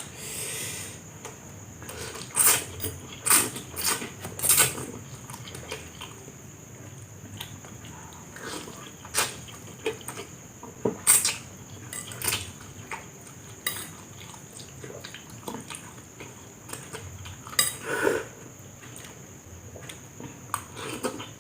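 Cutlery clinking and scraping against a dish while someone eats fried instant noodles: irregular sharp clicks, a few a second in clusters, with the loudest ones about a third and halfway through.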